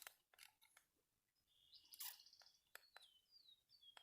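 Faint bird calls: short whistled notes that slide downward, repeated several times, with a few faint scattered clicks.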